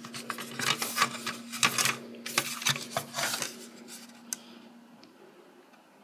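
Hands handling and turning a plastic smoke alarm housing with its mounting bracket just taken off: a quick run of clicks, taps and rubbing. The noise thins out after about four seconds, ending with one sharp click.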